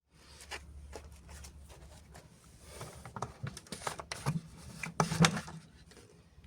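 Irregular clicks, knocks and rustles of a removed plastic power steering fluid reservoir and containers being handled, with the sharpest knocks about four to five seconds in.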